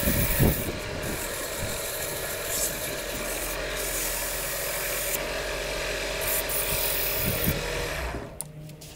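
320-grit sandpaper held against a hardwood vase blank spinning on a wood lathe, making a steady rubbing hiss over the lathe's motor hum. The hiss drops away near the end while the lathe keeps running.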